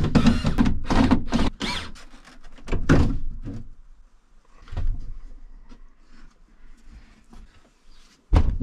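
Interior trim panel being pulled off a VW T4 van's side wall. There is a quick run of scraping and knocking pulls over the first two seconds, a couple of separate knocks after that, then quieter handling, and a loud thump just before the end.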